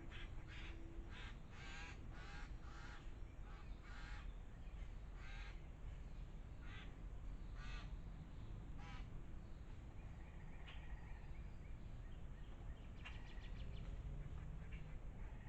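A bird calling over and over, short harsh calls about one or two a second for the first nine seconds, then a few scattered calls near the end.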